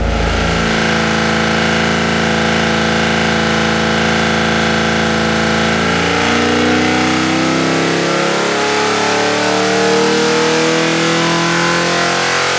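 Holden 308 V8 with a Quadrajet four-barrel carburettor running on an engine dyno, with loud carburettor induction noise. It holds steady revs for about six seconds, then climbs steadily in pitch as it is run up on a power pull, fed a richer mixture through new secondary metering rods.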